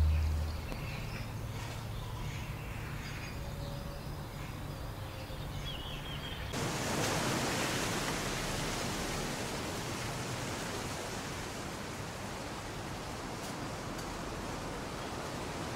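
Wind rushing through leafy trees, a steady rustling hiss that cuts in abruptly about six seconds in. Before it, only faint outdoor ambience with a few high chirps.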